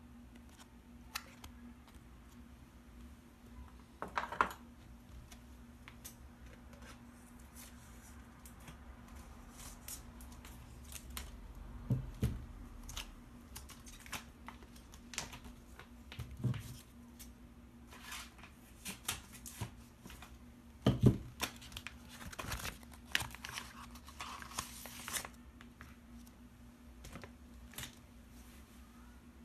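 Plastic packaging of a table tennis rubber being handled and opened by hand: crinkling and rustling of the plastic with scattered clicks and a few knocks. The loudest knock comes about two-thirds of the way through, followed by a few seconds of crinkling.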